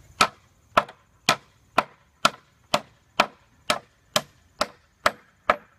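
A hammer striking wooden slats in a steady run of about a dozen blows, roughly two a second, to knock a screw out of the wood.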